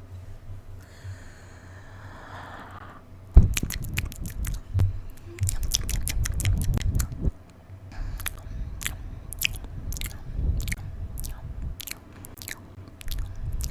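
Close-miked mouth sounds: a soft breathy hiss at first, then a few seconds of dense wet smacking and chewing-like sounds, then a run of sharp wet clicks at about two a second.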